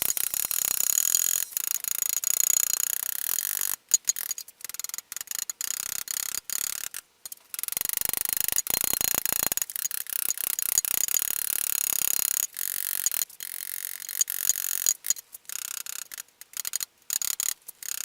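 Microwave-oven-transformer Lichtenberg machine's high-voltage arc sizzling and crackling across the wood as it burns a fractal. It is a harsh high hiss with a thin whine, cutting in and out many times with short breaks and a longer pause partway through.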